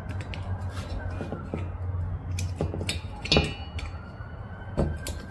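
Irregular light metallic clicks and taps from a magnet pick-up tool and washer working against a small-engine valve spring retainer as the split valve keepers are drawn off the valve stem. A faint siren rises and falls in the distance.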